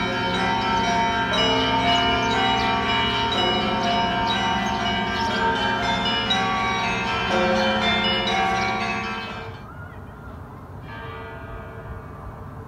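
Church bells of St. Michael's Golden-Domed Cathedral ringing a chime, many bells of different pitches struck one after another over a steady deep hum. About nine and a half seconds in the chime stops and the bells die away, and a quieter ringing starts again about a second later.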